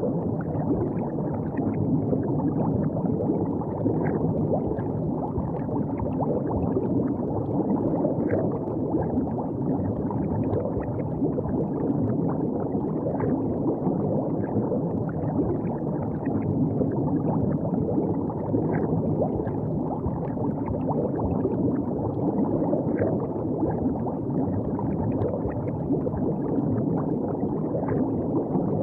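River water flowing and gurgling steadily, with small scattered splashes and ticks.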